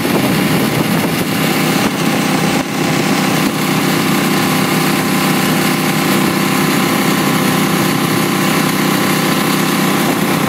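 Jet boat's engine running steadily at speed, over the rush of water from its jet spray and wake.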